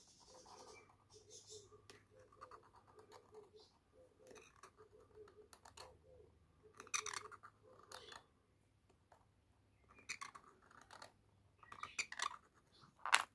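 Hardened-tip steel scribe scratching a circle into the face of a piece of beef bone: faint, short, irregular scraping strokes, a little louder in the second half.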